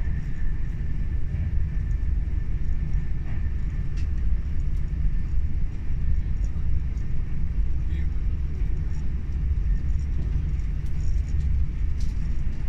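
Cabin noise inside a Class 390 Pendolino electric train running at speed: a steady low rumble of wheels on rail, with a few faint clicks.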